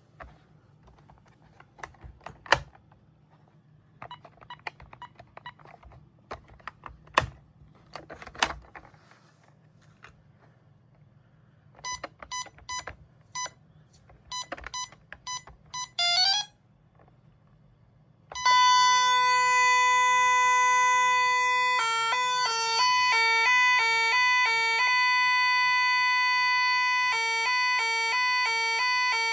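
Gardtec 591 intruder alarm system: a few scattered clicks, then a series of short beeps ending in a quick run. Then the alarm goes off loudly with a steady tone that changes after a few seconds to a fast two-tone warble.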